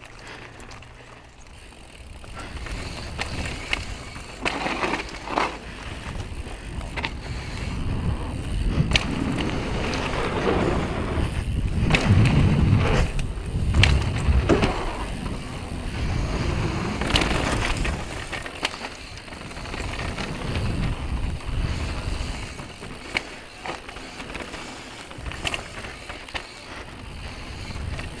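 Downhill mountain bike riding fast down a dirt and gravel trail: steady tyre noise over dirt and stones, with the bike rattling and knocking sharply over bumps and roots. It grows loudest midway through and eases off toward the end.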